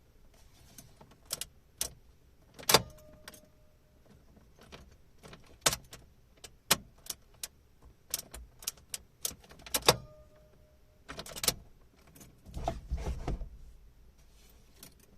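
A Fiat Elba's keyring jangling as the ignition key is worked back and forth, with many scattered sharp clicks and knocks. The car gives no response: no electrical contact at all.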